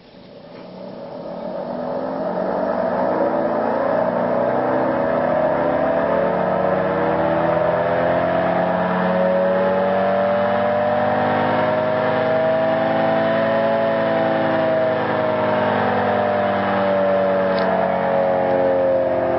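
Gents mechanical air raid siren spun by a small electric model-aircraft engine starter. Its wail builds over the first few seconds, rises slowly in pitch to a peak about two-thirds of the way through, then begins to sag. A brief click comes near the end.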